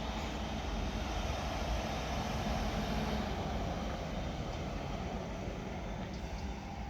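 Class 455 electric multiple unit standing at the station platform, a steady hum and rumble from its onboard equipment. A thin steady tone comes in near the end.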